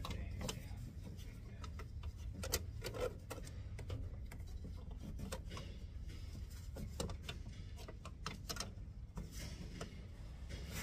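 Scattered clicks and light knocks of the Land Cruiser's plastic cowl panel and its clips being handled, over a steady low hum.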